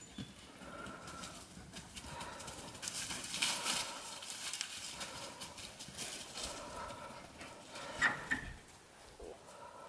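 Kuvasz dogs playing: paws thudding and scuffling over the ground as they chase and wrestle, with a couple of sharper knocks about eight seconds in.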